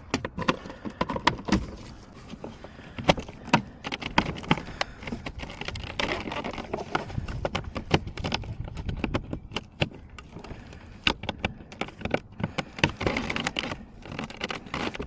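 Irregular clicks, taps and light rattles of door-handle parts and tools being handled and fitted back into a car door, a few sharper knocks among them.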